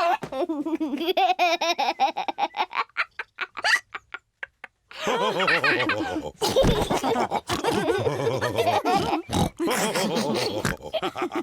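Cartoon pig characters laughing with snorts, several voices together. There is about a second of silence roughly four seconds in.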